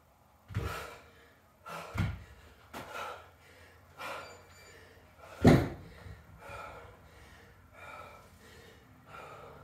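Plate-loaded dumbbells thudding onto a rubber floor mat several times, the loudest thud about halfway through as the pair is set down, between heavy gasping breaths after hard cardio exercise.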